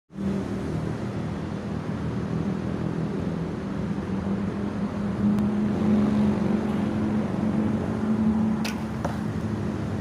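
Steady low drone of an engine or motor running, with an even pitch throughout. One short sharp click comes near the end, followed by a fainter tick.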